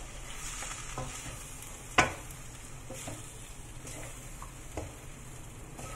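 Cabbage, potatoes and minced meat sizzling in a wok while a wooden spatula stirs them, scraping and knocking against the pan. One sharp knock about two seconds in is the loudest sound, with a few lighter ones around it.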